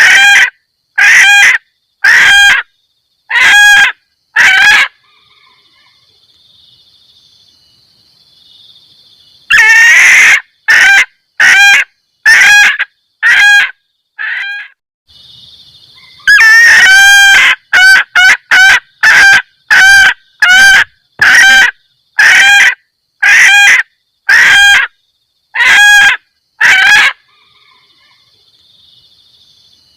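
Junglefowl hen giving its repeated 'kek-kek' mating call, the lure call that draws males: short, loud calls coming about one or two a second in runs, with two longer outbursts about ten and seventeen seconds in. A faint steady high hum fills the pauses between runs.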